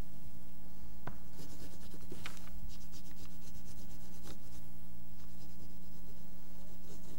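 Oil pastel rubbed and smeared on paper with the fingers, a few soft scratchy strokes, over a steady electrical hum.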